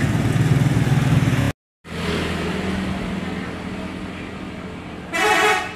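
Engines of a bus and motorcycles passing on a street, a low rumble that cuts out for a moment about a second and a half in, then comes back weaker and fades. A short honk sounds near the end.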